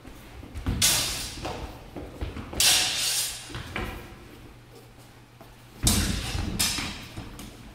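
Sparring exchange with steel training swords, a longsword against a basket-hilted broadsword: four loud bursts of blades clashing and scraping together with feet stamping and sliding on the floor. They come about a second in, near three seconds, and twice close together around six seconds.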